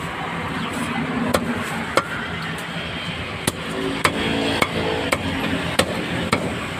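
Meat cleaver chopping on a chopping block: about eight sharp strikes, irregularly spaced, over steady street background noise.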